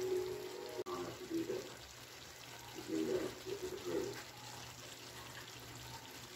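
Pork and potato stew in tomato sauce simmering in a pan, a faint watery bubbling hiss. Background music stops with a click about a second in, and faint voices are heard briefly in the background.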